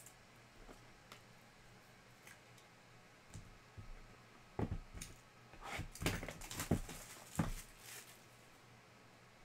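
Hands handling a cardboard trading-card hobby box on a table, making a few light clicks, then a run of knocks and scrapes from about halfway through as the box is moved and set down.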